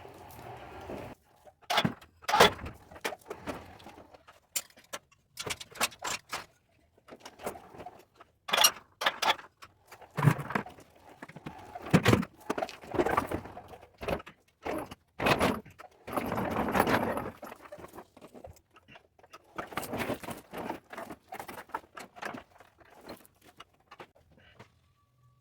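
Metal chains rattling and clanking as they are handled, with many sharp knocks and clinks scattered throughout.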